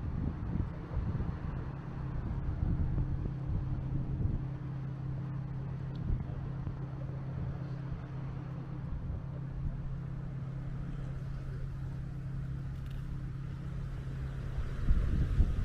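An engine running steadily at an even pitch, with wind buffeting the microphone in the first few seconds and again near the end.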